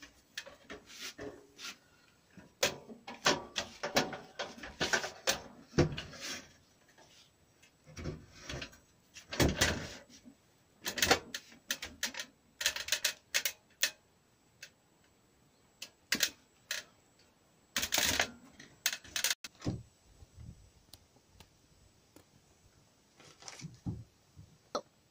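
Aluminium stepladder being handled and set up, giving irregular metal clicks, clanks and rattles. There are louder clatters about ten seconds in and again about eighteen seconds in.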